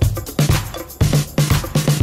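Upbeat background dance music with a steady beat, about two beats a second.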